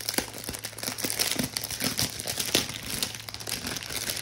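Clear plastic wrapping around a rolled diamond painting canvas crinkling continuously as it is handled and unwrapped, a dense run of small crackles.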